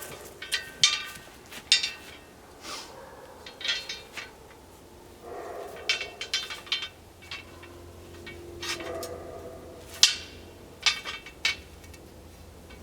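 Steel chains and S-hooks clinking and rattling against the steel target stand as it is handled: a string of sharp metallic clinks with short ringing, the loudest about ten seconds in.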